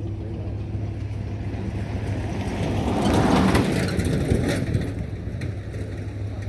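An engine running steadily with a low hum; about halfway through, a louder rush of noise swells up and dies away, followed by a couple of sharp knocks.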